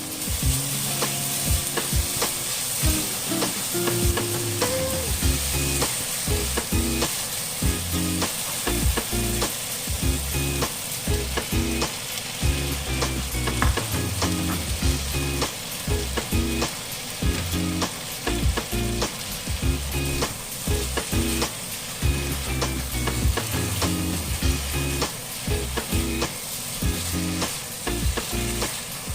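Lamb leg slices frying in a pan, sizzling steadily, with many short clicks and scrapes from being stirred.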